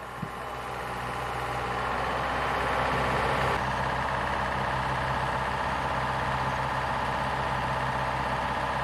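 Heavy engine of a mobile crane running steadily as the crane works. It fades in at the start, with one small knock shortly after.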